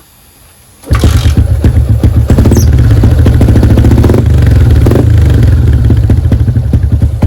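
Single-cylinder four-stroke motorcycle engine with an Espada E4 exhaust and open silencer (baffle removed) starting up about a second in, then running loud with rapid exhaust pulses.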